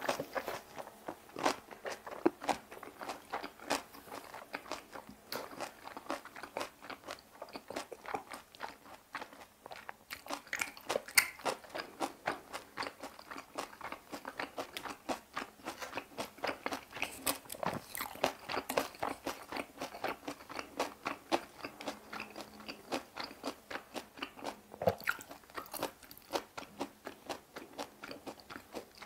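Close-miked chewing of a mouthful of boiled pork (bossam) and napa cabbage kimchi: crunching and biting in quick, irregular clicks that go on throughout.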